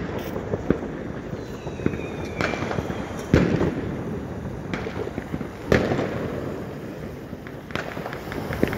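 New Year's Eve fireworks going off: a steady scatter of firecracker and rocket bangs, with two louder bangs about three and a half and nearly six seconds in, and a short whistle from a rocket around two seconds in.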